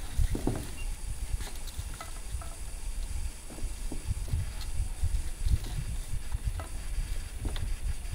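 A plastic bag rustling and crinkling, with light clicks of small parts being handled, over an uneven low rumble of wind buffeting the microphone.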